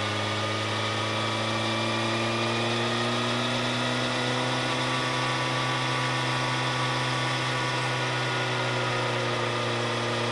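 Vehicle engine running steadily while driving, with a droning hum whose pitch rises slightly over the first few seconds and then holds level.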